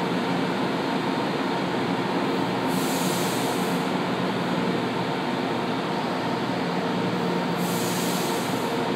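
São Paulo Metro Line 1 train standing at the platform with its doors open, its onboard equipment giving a steady hum. Two short bursts of air hiss come about three seconds in and again near the end.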